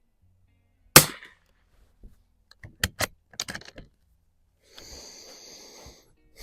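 A single shot from a Mossberg 144 bolt-action .22 target rifle about a second in, followed by a quick series of metallic clicks as the bolt is worked to chamber the next round. A brief rustle comes about five seconds in.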